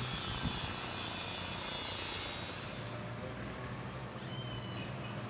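Outdoor town ambience: a steady hiss of background noise that changes abruptly about three seconds in to a quieter street background, with a faint brief high chirp a second later.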